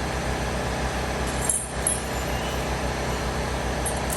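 Steady mechanical running with a low pulsing hum. It briefly dips about a second and a half in, where a few light clicks sound, and there are more light clicks near the end.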